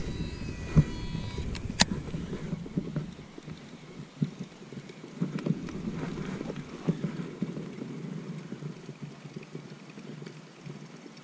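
Handling noise: rustling and light knocks of clothing and fishing gear against the camera, with a few sharp clicks and a brief high squeak in the first two seconds, then quieter rustling.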